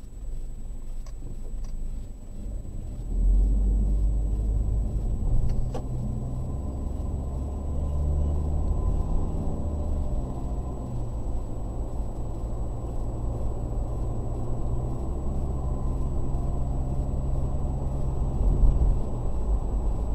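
Car engine and tyre noise heard from inside a moving car: a low, steady rumble whose engine pitch shifts up and down a few times as the car drives on. A short click comes about five and a half seconds in.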